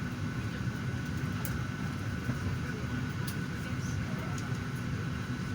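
Steady low rumble of an airliner cabin at the gate, with a faint steady high whine over it and a few faint clicks.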